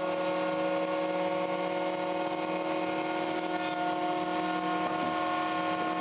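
Benchtop surface planer running with a steady, even whine while leg stock is fed through it.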